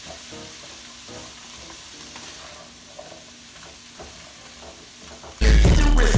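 Vegetables sizzling in a nonstick wok while a spatula stirs and scrapes them. About five seconds in, loud music with a deep bass beat cuts in suddenly and drowns out the frying.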